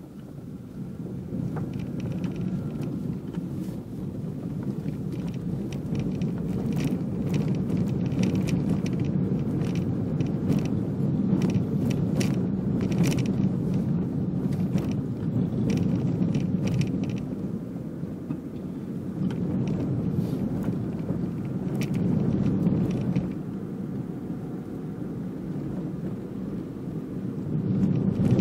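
Car driving, heard from inside the cabin: steady engine and road noise that swells over the first couple of seconds, with scattered clicks and knocks through the middle.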